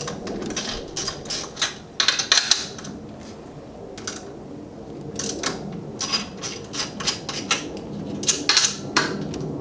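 Ratchet wrench clicking in several quick runs as the nuts holding the strut top to the strut tower are backed off.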